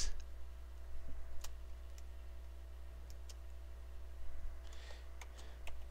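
A few scattered computer mouse and keyboard clicks over a steady low hum.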